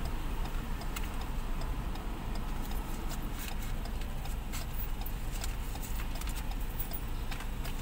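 Steady low rumble of an idling vehicle engine, with scattered light clicks and ticks over it.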